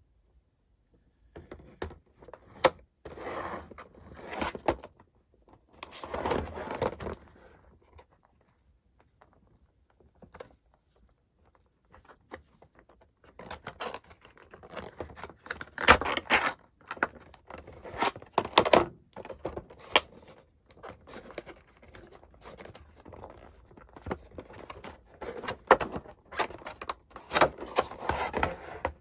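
Hands unpacking and handling a plastic power strip and its packaging: rustling in several stretches, with sharp clicks and knocks of hard plastic set down or tapped, and a quieter pause in the middle.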